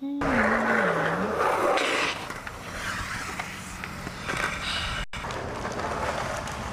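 Skateboard rolling on pavement, its wheels making a steady rumbling noise that is loudest in the first two seconds and drops out for an instant about five seconds in. A hummed tune trails off in the first second.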